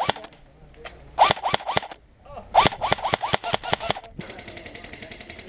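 Airsoft electric rifle firing on full auto: a short burst of about five shots about a second in, then a longer burst of about ten shots, each shot a sharp crack. A little after four seconds the sound changes abruptly to a fainter, steady, rapid ticking.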